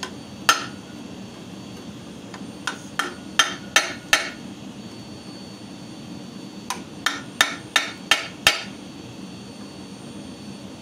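A hammer strikes a chisel held on a red-hot steel leaf to cut the groove of its vein, the steel resting on a steel plate. There is one blow, then two runs of five and six quick ringing strikes, about three a second.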